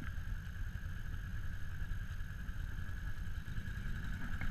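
ATV engine idling steadily, a low rumble with an even higher-pitched hum above it.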